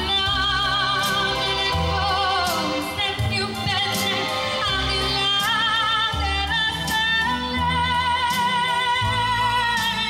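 A woman singing long, wavering held notes into a microphone, amplified, over backing music with a bass line and a steady drum beat.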